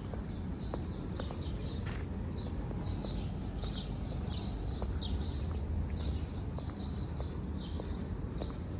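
Small birds chirping, a flock's short downward chirps several times a second, over a steady low rumble, with faint ticking footsteps on a hard path.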